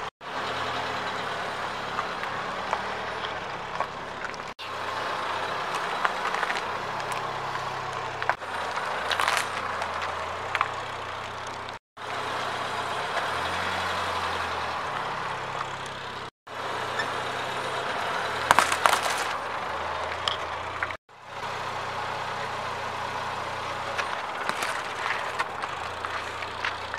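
Car engine idling as the car creeps over gravel, with a few sharp crunches and cracks as small objects are crushed under a front tyre. The sound breaks off briefly several times where the clips are cut together.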